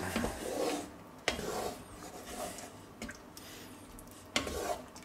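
Wooden spatula stirring thick goulash in a cast-iron Dutch oven, scraping and rubbing through the stew, with a couple of sharp knocks, about a second in and again near the end.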